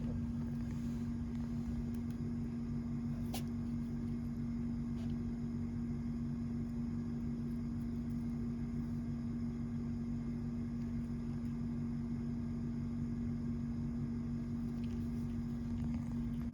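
Steady low machine hum, with a single click about three seconds in.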